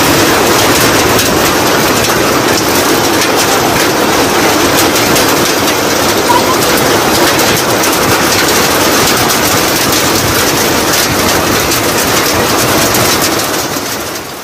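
Rain pouring steadily, a loud dense hiss of falling drops, fading out near the end.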